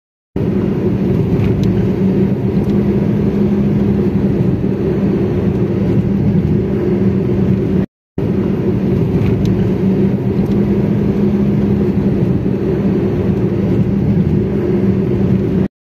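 Steady road and engine noise of a car driving along a motorway, heard from inside the car, with a low steady hum. It cuts out briefly near the middle and again near the end.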